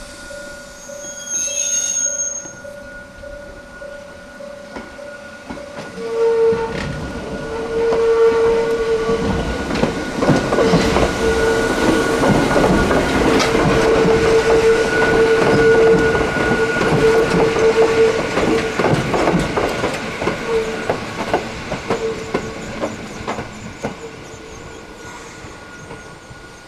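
Hakone Tozan Railway electric train passing. It grows loud about six seconds in, with rapid clicking of wheels over rail joints and a long, wavering high-pitched wheel squeal, then fades away near the end.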